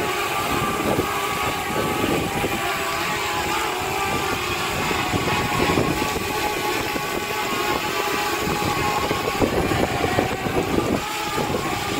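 DJI Spark quadcopter's propellers buzzing with a steady whine as it flies close by in sport mode, over the hiss of heavy rain.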